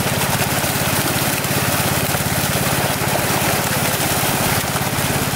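Many netted fish thrashing at the water surface, a loud continuous splashing, over a small engine running steadily.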